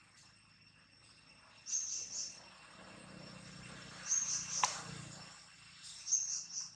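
Outdoor insect chorus: a steady high drone with a high chirping call of two or three quick notes repeating about every two seconds. A single sharp click comes about two-thirds of the way through.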